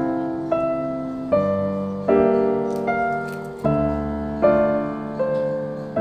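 Background solo piano music: unhurried notes and chords struck about once every second, each ringing and fading before the next.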